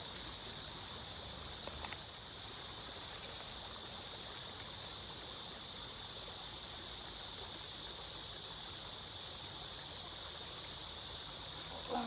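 Steady high-pitched buzz of an insect chorus in the riverside grass, with one faint click about two seconds in.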